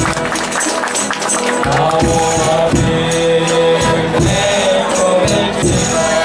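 Folia de Reis ensemble playing: held notes over a steady beat of drum strokes, with tambourine jingling.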